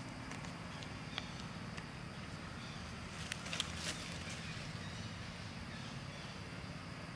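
Crackling and rustling of dry leaf litter as young monkeys scamper across it, with a short cluster of crackles about three to four seconds in, over a steady low hum.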